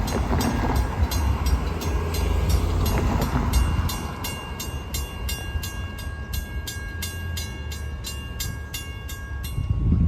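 Grade-crossing bell ringing steadily at about two and a half strokes a second while a Long Island Rail Road diesel train rumbles through the crossing. The rumble is loudest for the first few seconds, then eases, and the bell stops just before the end.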